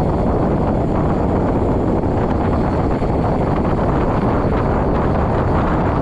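Steady wind noise buffeting the microphone while riding, heavy in the low end and without any clear engine tone.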